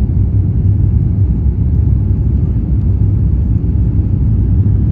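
Steady low rumble of an Airbus A350 airliner's Rolls-Royce Trent XWB engines, holding an even level with no rise or fall.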